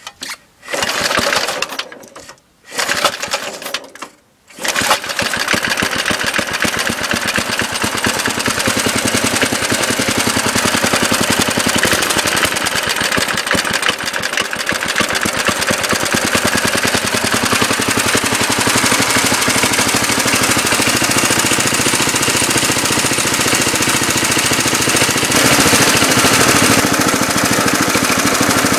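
1971 Briggs & Stratton 2 hp single-cylinder four-stroke mower engine restarting after stalling with the choke not fully open: it catches in two short bursts with brief dropouts, then about four and a half seconds in it settles into steady running with a fast, even firing beat, idling low.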